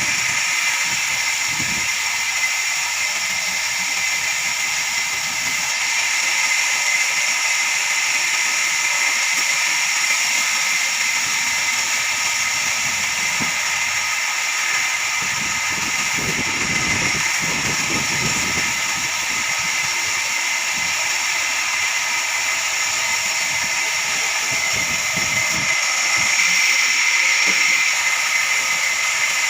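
Large horizontal band sawmill running, its blade cutting through a log with a steady high-pitched whine and hiss.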